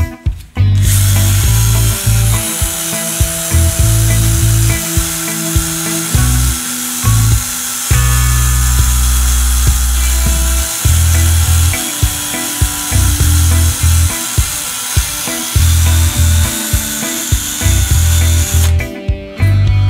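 Handheld power tool spinning a wire wheel against a metal clutch pedal, scouring off the paint: a steady, high scraping noise that starts about a second in and stops about a second before the end. Background music with a bass line plays under it.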